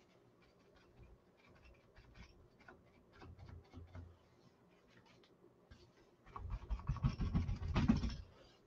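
Crumpled paper towel dabbed and dragged over a stretched canvas to lay on paint, giving faint scattered scratchy ticks at first, then a louder stretch of rubbing with a low drum-like rumble from the canvas, from about six seconds in until just before the end.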